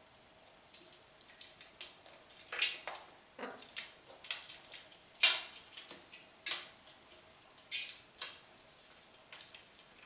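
Blue-and-yellow macaws feeding from a steel bowl on a glass table: irregular sharp clicks and clacks of beaks and claws against the bowl and tabletop, the loudest about five seconds in.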